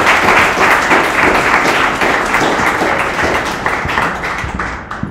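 Audience applauding, the clapping gradually dying away near the end.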